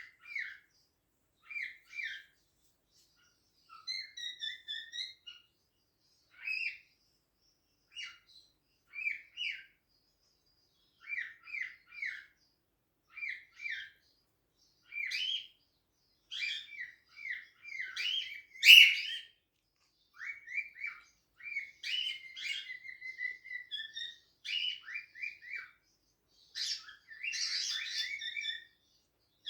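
Cockatiels chirping in short repeated bursts, with one louder call about two-thirds of the way through and a busier run of chirping near the end.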